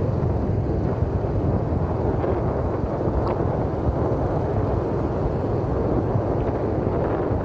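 Wind buffeting the microphone in open country: a steady, rumbling rush with irregular gusty flutter, and a faint short high sound about three seconds in.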